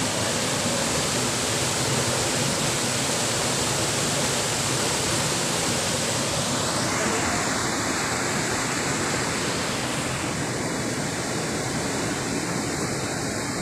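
Steady rush of white water as a shallow mountain stream spills over a low rocky ledge in a row of small cascades. The hiss thins slightly about halfway through.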